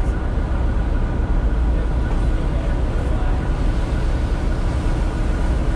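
Ferry engines running with a steady low rumble.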